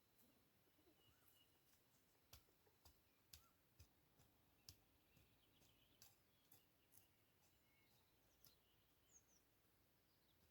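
Near silence with faint scattered clicks and a few faint, short bird chirps.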